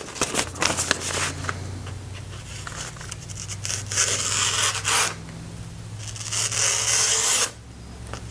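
Freshly sharpened Bailey No. 5 plane iron slicing through a sheet of paper to test the edge, giving a papery hiss and rustle. Two longer cuts come in the second half.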